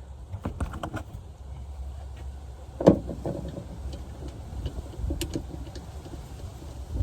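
Light clicks and one sharp knock about three seconds in from screws being driven by hand into a tailgate latch, over a steady low rumble.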